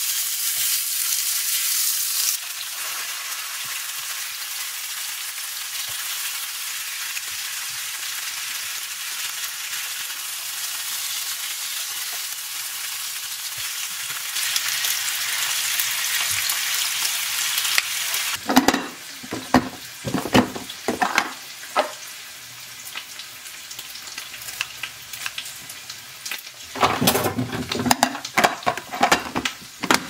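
Pork belly frying in a pan, a loud steady sizzle. About two-thirds of the way through the sizzle drops quieter, and a string of sharp knocks and clacks follows, with another cluster near the end.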